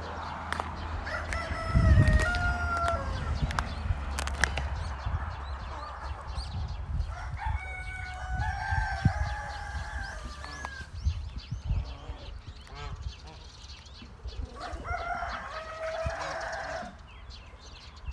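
A rooster crowing three times, each crow lasting about two to three seconds, over a steady low rumble.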